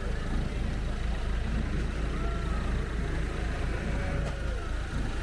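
Heavy, steady low rumble with faint voices of an outdoor crowd drifting through it.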